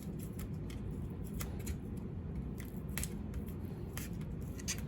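Scattered light clicks and crinkles from handling crafting materials, over a steady low hum.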